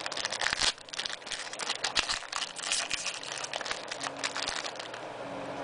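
Foil wrapper of a 2004-05 Hoops basketball card pack crinkling and tearing as it is pulled open by hand: a dense run of crackles that thins out after about three seconds.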